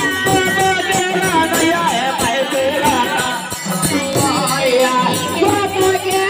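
Live Indian folk devotional music: male voices singing over dholak barrel drums beaten in a fast, steady rhythm and small brass hand cymbals (manjira) clashing on the beat.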